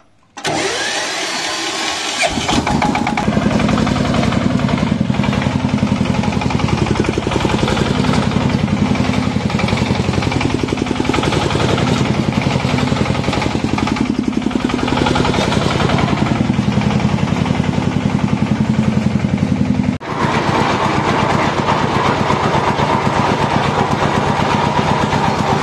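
Changchai single-cylinder diesel engine on a power tiller being started: about two seconds of cranking, then it catches and runs with a fast, steady knock. About twenty seconds in the sound changes abruptly to the tiller's rotary blades working the soil with the engine under load.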